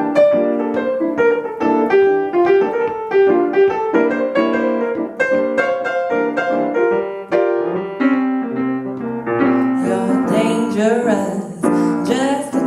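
Piano playing a song's instrumental passage. About ten seconds in, the sound grows fuller as a voice and other instruments join.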